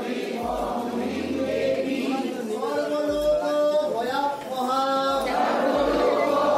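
Music with a group of voices singing in chant-like phrases, over a few short deep bass notes.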